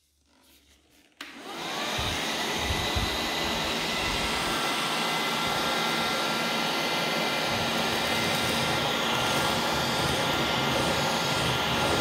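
Fakir AS 1037 NT 3.7 V cordless handheld vacuum switched on about a second in, spinning up quickly and then running steadily with a high whine while it sucks up a small pile of fine dust.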